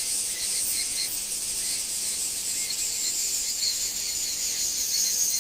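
A dense chorus of cicadas buzzing: a steady, high, shimmering drone with a fine fast pulse running through it.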